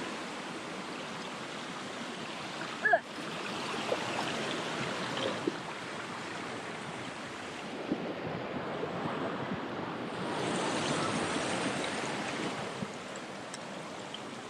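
Steady rush of a mountain waterfall and creek, an even hiss of falling water, with one brief sharp knock about three seconds in.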